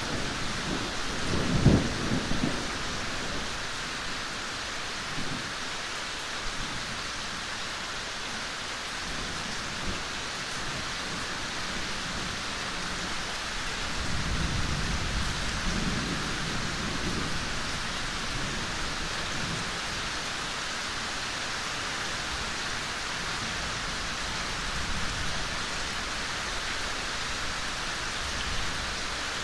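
Steady rain falling in a forest, with a low rumble about two seconds in and another, longer one from around fourteen to seventeen seconds.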